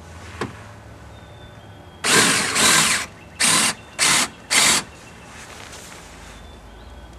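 Power drill with a 1/2-inch bit run in five short bursts, boring at an angle up into the wood of a deck handrail. The first two bursts run nearly together, then three shorter ones come about half a second apart.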